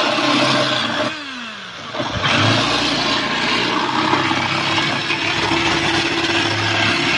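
Handheld electric drill drilling into a sheet-metal box. The motor runs with a steady whine, is released about a second in and spins down, then starts again about two seconds in and runs steadily to the end.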